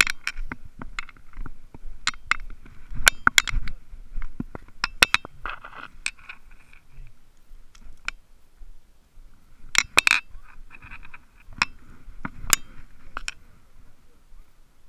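Fishing tackle handled close to the microphone: a hard-bodied lure's treble hooks and a plastic tackle box give a run of sharp, irregular clicks and clinks, with a louder cluster about ten seconds in.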